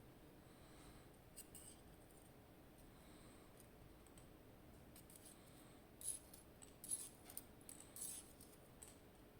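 Faint near-silence broken by small, sharp metallic clicks: one early on, then several in quick succession in the second half, as the springs and pins are taken out of a GeGe AP 2000 lock cylinder during disassembly.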